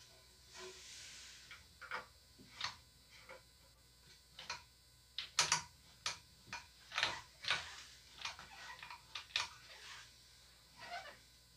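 Plastic toilet fill-valve locknut being tightened with pliers under the tank: an irregular run of small clicks and creaks from the plastic threads and the pliers, the loudest about halfway through.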